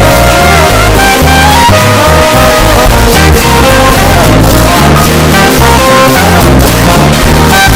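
Loud background music with guitar and a steady bass line.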